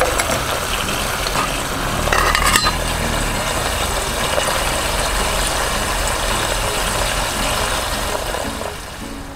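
Olive oil sizzling and bubbling steadily in an aluminium mess tin over a gas camping stove as an ajillo of mushrooms and octopus cooks. About two seconds in, a short metallic clatter as the aluminium lid is set on the tin.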